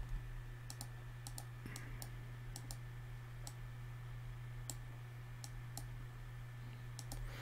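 Faint computer mouse clicks at irregular intervals, about twenty in all, over a steady low hum.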